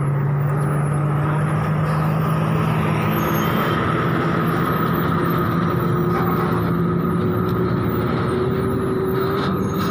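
Truck engine running at idle, a steady hum that rises slightly in pitch in the second half.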